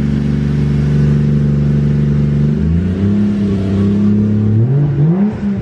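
A Nissan Skyline R34's swapped Toyota 1JZ inline-six idles steadily, then is revved twice, the second rev rising and falling quickly near the end. The revs are a test for the engine breaking up after new spark plugs and a wiring fix, and it sounds way better.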